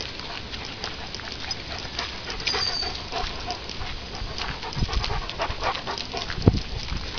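A dog panting close by, with short scuffs and clicks mixed in.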